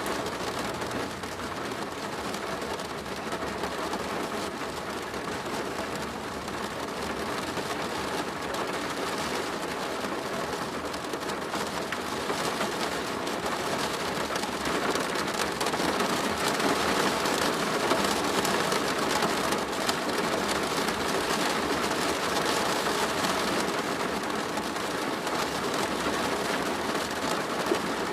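Steady rain drumming on a plastic roof: a dense patter that grows a little heavier about halfway through.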